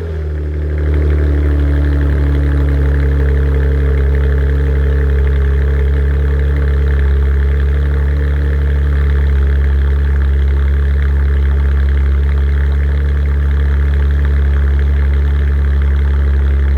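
Supercharged car engine idling steadily just after a cold start. The revs settle from the start-up flare in the first second, then hold even.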